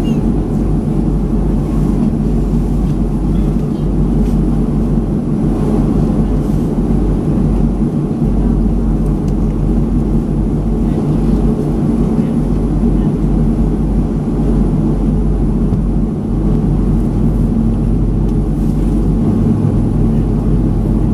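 Steady low rumble and hum of a Boeing 737-500 as heard inside the passenger cabin from a seat over the wing, with the aircraft standing still on the apron.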